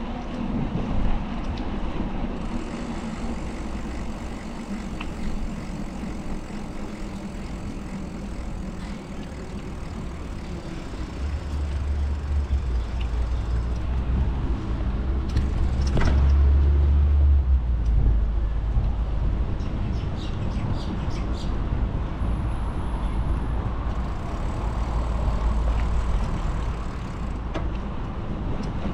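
Road traffic noise from a city street heard from a moving bicycle: cars and heavier vehicles running past, with a deeper rumble in the middle stretch as something large passes.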